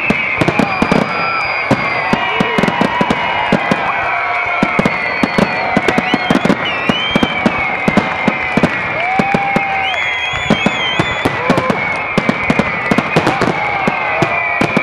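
Fireworks display: a rapid, irregular barrage of aerial shell bursts and crackling bangs, several a second, with high whistling tones rising and holding over them.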